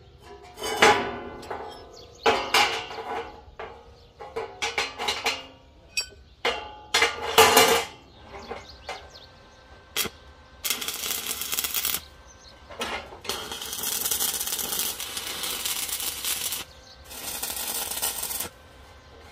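Steel parts clanking and being knocked against each other, a string of sharp ringing metallic strikes. In the second half come three stretches of steady hissing metalwork noise, each lasting one to four seconds.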